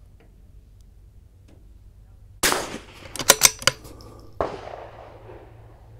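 Two shots from a Vudoo V-22 .22LR bolt-action rifle, about two seconds apart, the first about two and a half seconds in. A quick run of sharp metallic clicks falls between them as the bolt is cycled.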